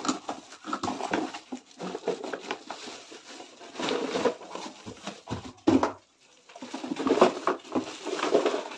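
Plastic wrapping rustling as a wrapped plastic potty seat is lifted out of a cardboard box and handled, with a sharp knock a little before six seconds in.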